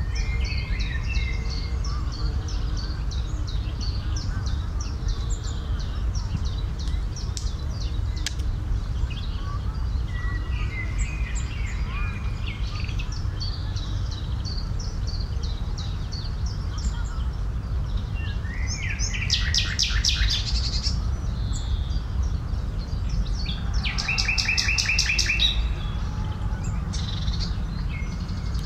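Small songbirds chirping and calling over one another, joined twice in the last third by louder rapid trilling songs as more birds start up. A steady low rumble runs underneath.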